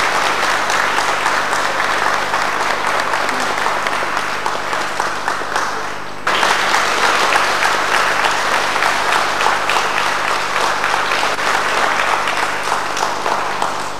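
An audience clapping, a dense run of applause. It dips and starts again abruptly about six seconds in.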